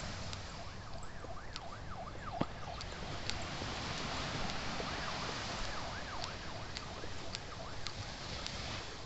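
Steady rush of small waves lapping on a sandy beach with wind, while birds call in runs of short rising-and-falling whistled notes, about a second in and again midway, among scattered sharp high ticks.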